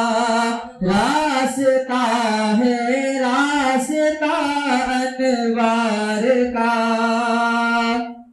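A man's voice sings a manqabat, a devotional Urdu poem in praise of a saint, unaccompanied. He holds long notes that waver and bend in pitch, with a short break for breath a little under a second in, and stops just before the end.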